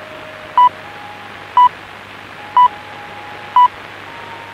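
BBC Greenwich Time Signal pips counting down to the hour: four short, identical high beeps, one each second, received over shortwave with a steady hiss and a faint whistle underneath.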